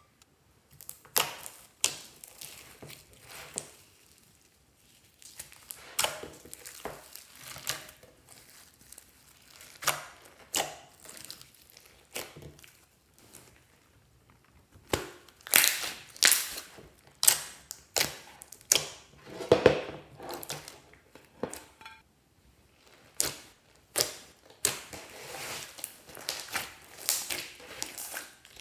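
Glossy slime being pressed and kneaded by hand, giving off sticky pops and crackles in irregular bursts separated by short pauses.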